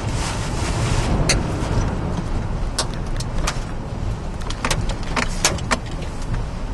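Hurricane wind and driving rain against a moving car, heard from inside the cabin as a steady rushing noise over a low road rumble. About eight sharp ticks and knocks strike at irregular moments, fitting wind-blown debris and rain hitting the car's body and windshield.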